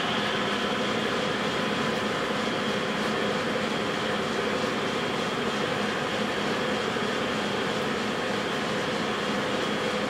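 South Bend 10L metal lathe running steadily, its spindle turning the broken compound-screw shaft while a center drill in the tailstock chuck cuts a center hole into the shaft end. A steady machine hum with a faint high tone over it.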